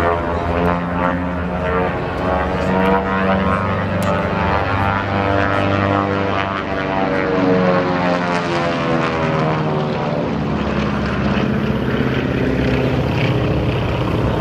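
The twin nine-cylinder Pratt & Whitney R-985 radial engines and propellers of a 1943 Beech 18 in low display flight, droning steadily with the engine note sliding up and down in pitch as the plane manoeuvres past.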